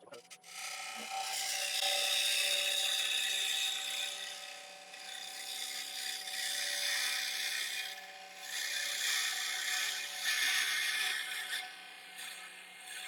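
A turning tool cutting out the inside of a Monterey cypress bowl spinning on a wood lathe: a hiss of cutting that swells and eases over several passes, above a faint steady hum.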